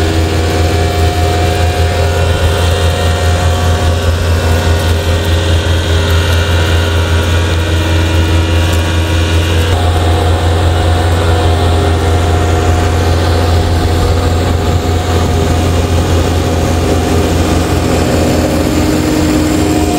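Case IH Puma 180 CVX tractor's six-cylinder diesel engine running steadily while pulling a slurry tanker, with a small change in its note about ten seconds in.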